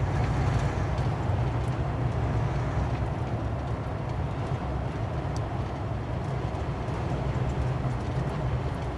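Semi-truck's diesel engine and road noise heard from inside the cab while driving, a steady low drone.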